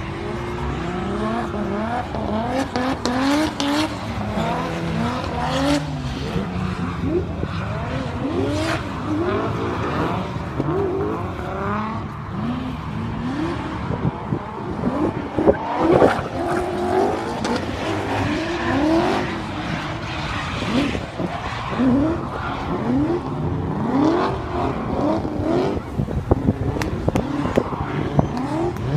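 Drift cars' engines revving hard again and again, the pitch climbing and dropping many times as the cars slide through the corners, with tyres squealing.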